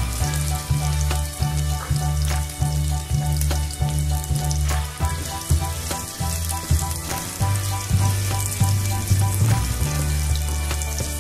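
Sliced sausages sizzling as they fry in oil in a wok, stirred with a spatula that ticks against the pan, over background music with a steady bass line.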